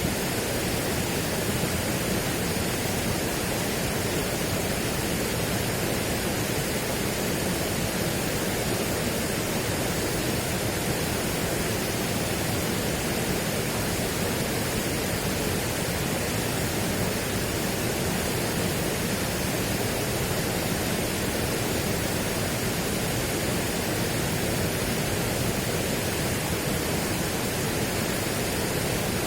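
Steady, unchanging rushing noise spread evenly from low to high pitches, with no separate sounds or swells.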